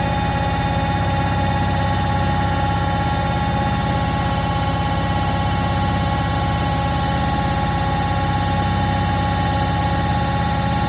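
Beko washing machine in its high-speed final spin, the motor giving a steady high whine over an even low drum rumble.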